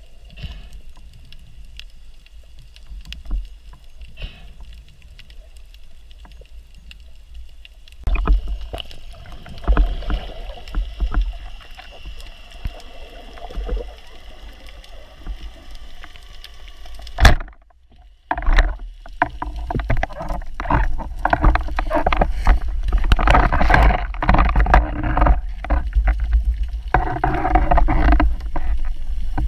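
Muffled underwater sound through a camera's waterproof housing while spearfishing: water rushing with scattered knocks and clicks from the speargun and the diver's movement. About two-thirds of the way through there is one sharp, loud crack, then a second of near silence. After that the rushing and clattering are louder and busier.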